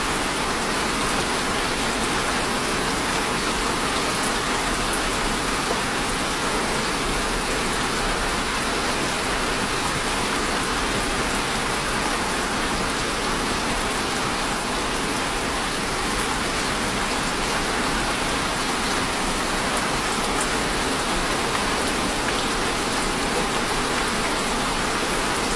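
Steady heavy rain falling on a surface, an even hiss with scattered faint drop ticks.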